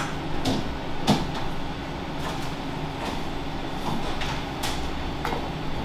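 Steady kitchen background hum and hiss with a few light clicks and taps.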